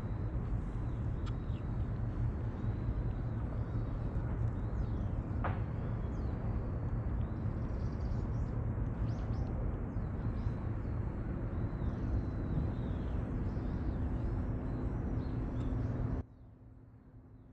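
Outdoor background noise, a steady low rumble like wind or distant traffic, with small birds chirping over it and a single sharp click about five seconds in; it cuts off abruptly near the end, leaving a faint hum.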